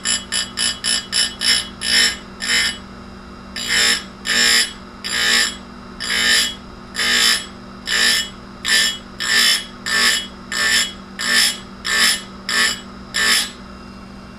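Chain grinder wheel (Tecomec Jolly Evo) dabbing against a chainsaw chain tooth in short strokes, each a brief high-pitched grinding burst. The strokes come in a quick run at first, then after a short pause at about one and a half a second, over the steady hum of the grinder motor.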